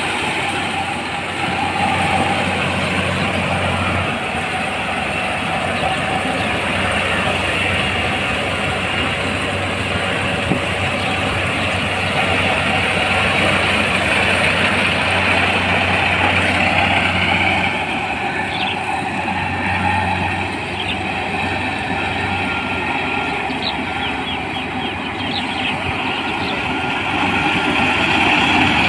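Kubota PRO588-IG mini combine harvester running steadily, engine and machinery making a continuous loud mechanical noise, with a few faint high ticks in the second half.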